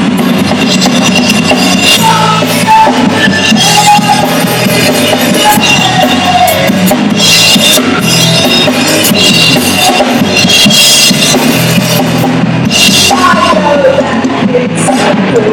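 Live rock band playing: a drum kit keeps a steady beat with crashing cymbals under electric guitar.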